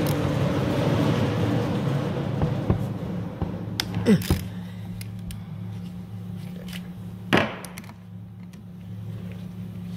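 Metal tool work on a gearbox: a 12 mm socket on an extension turning a nut, giving scattered clicks and two louder clanks, about four seconds in and again about seven seconds in. Underneath is a steady low hum, with a hissy background noise that fades over the first few seconds.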